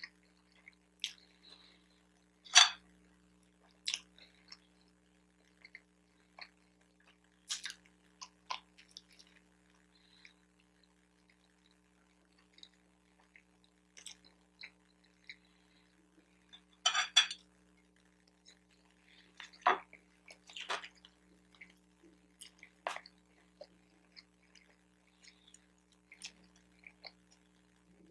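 Close-miked chewing of a bacon, egg and Swiss cheese everything bagel: scattered mouth clicks and smacks, with a few louder sharp sounds, the loudest about two and a half seconds in and again around seventeen seconds. A faint steady hum runs underneath.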